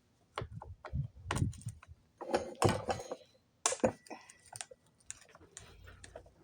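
Irregular clicks, taps and light knocks of hand tools and hard plastic and metal parts being handled, spaced unevenly with short gaps, the sharpest knock about three and a half seconds in.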